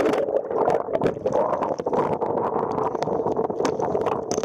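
Muffled churning and gurgling of water heard with the camera under the surface, with many small clicks and knocks. The sound opens up again near the end as the camera comes back out of the water.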